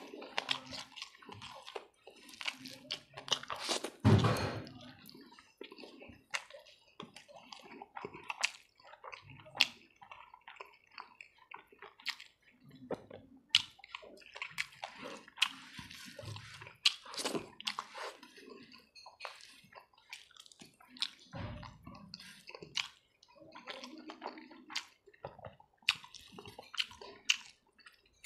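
Close-miked wet chewing and lip smacking as pork and rice are eaten by hand, with fingers squishing the rice on the plate. Many short, sharp wet clicks and smacks come in irregular runs.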